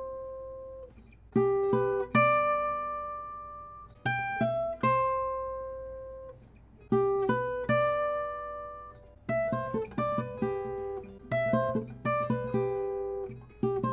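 Solo acoustic guitar played fingerstyle: picked phrases of ringing notes that fade out, with short pauses between phrases, growing busier with quicker notes after about nine seconds.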